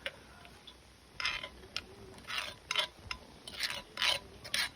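A run of short, irregular clicks and scrapes, about two a second, starting about a second in.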